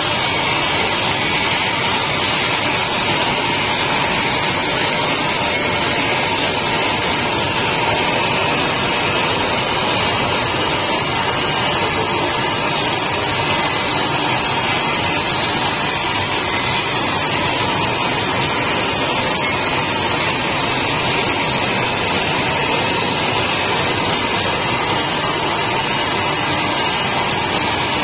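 Automatic glass edge polishing machine running, its grinding and polishing wheels working the edge of a glass sheet as it travels along the conveyor. The sound is a loud, steady, continuous whirring hiss with a faint steady tone under it.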